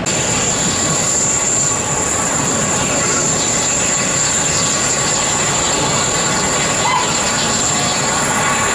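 N gauge model train running on an exhibition layout: a constant rushing rumble with a steady high-pitched whine over it.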